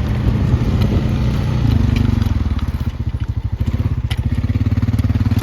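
Small off-road vehicle engine running at low speed, with scattered crackles and clicks; its firing pulse grows clearer about two seconds in.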